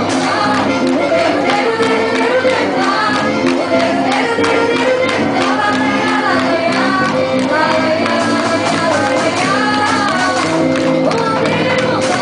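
Festa junina quadrilha music: a song with a singer over continuous instrumental accompaniment, steady and loud throughout.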